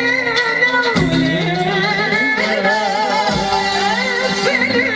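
Live Arabic popular music: a woman sings a wavering, ornamented melody into a microphone over band accompaniment with drum strokes.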